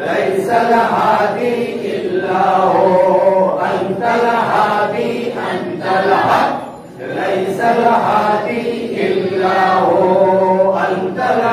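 Islamic devotional chanting of a milad or zikr, sung in long held phrases with a short pause about seven seconds in.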